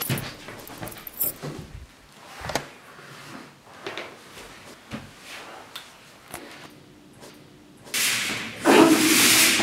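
A few knocks and clicks as an apartment front door's lock and handle are worked and the door is opened, with light movement sounds between. Near the end comes a loud scuffing hiss lasting about a second and a half.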